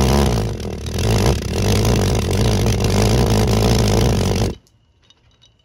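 Jam jar valveless pulse jet running: fast, low pulsing buzz of resonant combustion bursting through the lid's single hole, which cuts off suddenly about four and a half seconds in when the burn ends. The run is a working pulse jet, only a short one.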